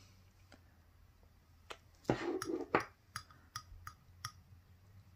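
Metal palette knife clicking against a glazed ceramic tile as gel polish is mixed on it: a brief louder scrape about two seconds in, then a run of light, sharp ticks a little over two a second.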